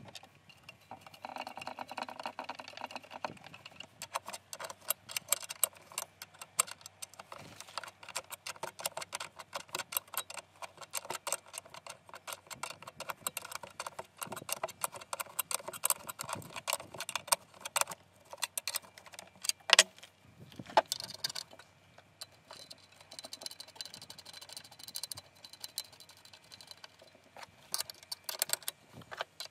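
Steel open-end wrench clinking on nuts and bolts as a bracket is tightened onto a steel base plate: rapid small metallic clicks and clinks, with two louder knocks a little past the middle.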